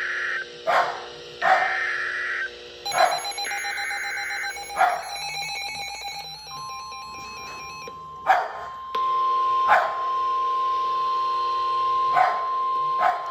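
Emergency Alert System data bursts from a weather radio: three short bursts of screechy digital tones about a second apart, then the steady single-pitched weather-radio warning alarm tone, which starts about six seconds in and gets louder about three seconds later. A dog barks repeatedly over it.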